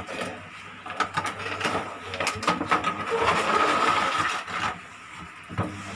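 Clear plastic packaging tray scraping and crinkling as it is slid out of a cardboard box, with a string of clicks and taps; the scraping is loudest a little past the middle.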